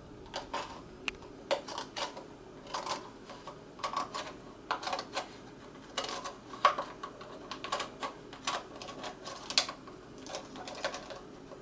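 Scissors snipping through a thin plastic yogurt container. The blades cut around its rim in a string of sharp, irregularly spaced clicks.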